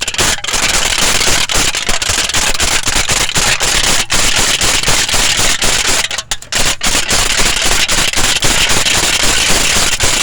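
Aluminium tin foil being crinkled and crushed close to the microphone: a loud, dense crackling of many sharp clicks, with a couple of brief lulls about six to seven seconds in.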